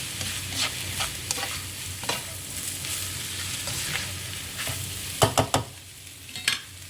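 Cabbage and shredded carrot sizzling in hot oil as they are stir-fried, with a utensil scraping and knocking against the pan. A few sharper knocks come a little over five seconds in, and the sizzle eases toward the end.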